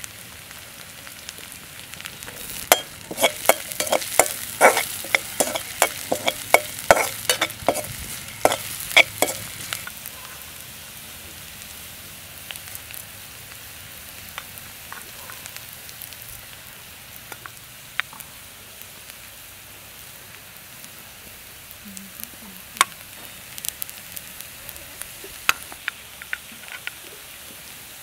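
Sliced red onions frying in oil in a metal wok, a steady sizzle. From about three seconds in, for several seconds, a spoon stirs in the pan in a quick run of sharp clicks and scrapes, with a few single taps later on.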